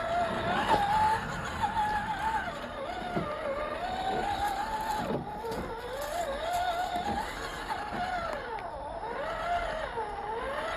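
Electric motor and gearbox of a 1:10 scale RC crawler van whining, the pitch rising and falling continually with the throttle as it crawls, with a few brief drops where the throttle eases off.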